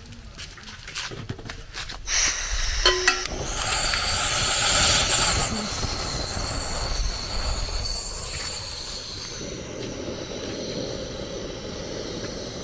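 Pot of ewedu (jute leaf soup) on the heat being brought to the boil: a steady hissing rush with a thin high squeal sets in about two seconds in, with a few clicks just after, and turns to a lower, duller rush near the end.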